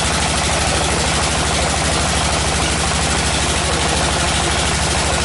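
Diesel engine of a tractor-mounted water well drilling rig running steadily under load, with a fast, even pulse and a dense hiss over it.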